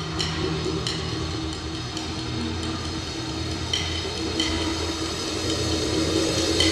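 Dark ambient intro of a doom/death metal track: a low, noisy droning rumble with a few sparse metallic strikes that ring out high, slowly swelling in loudness.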